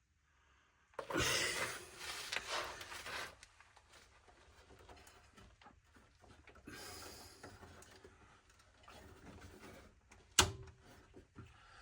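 Hands rustling and scraping while pushing plastic protective caps onto fuel pipe ends, with one sharp click about ten seconds in.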